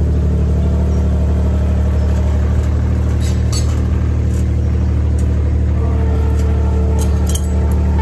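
Cormidi tracked mini skid steer's engine running steadily as the machine moves on its tracks, with a few light metallic clinks a few seconds in and near the end.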